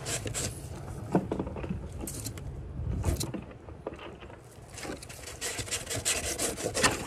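Mustad 9-inch fillet knife cutting along a mullet's backbone, the blade rasping and clicking over the spine and rib bones in quick runs, thickest near the end.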